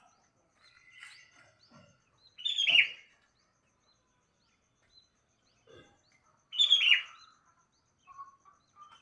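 Sooty-headed bulbul (kutilang) calling: two loud, short calls about four seconds apart, with fainter chirps between them.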